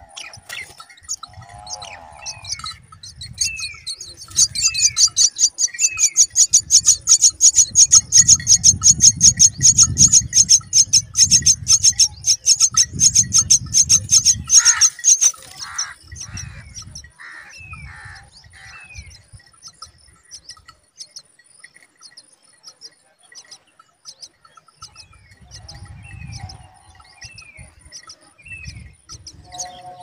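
Common myna nestlings begging from the nest: a loud, fast run of high calls, many a second, lasting about ten seconds. Softer, downward-slurred chirps come before and after it.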